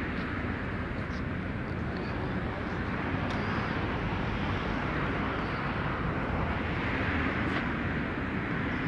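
Steady outdoor background noise: an even rushing hiss over a flickering low rumble, with no single event standing out.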